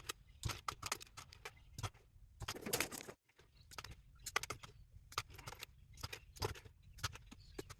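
Small brass and copper pieces cut from electrical plugs clicking and clinking as they are handled and dropped, many irregular sharp clicks with a brief rustle about two and a half seconds in.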